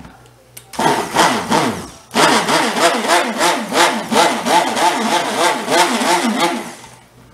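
Hamilton Beach hand-held stick blender running in cold-process soap batter: a short burst about a second in, then a longer run of several seconds, its motor pitch wavering quickly up and down, easing off near the end.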